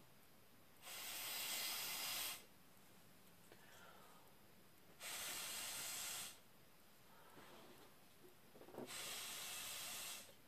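Three hard blows of air through a drinking straw onto wet acrylic pouring paint, each about a second and a half long with a few seconds' pause between, a rush of air each time. Each blow pushes the paint back to open up the centre of one poured flower.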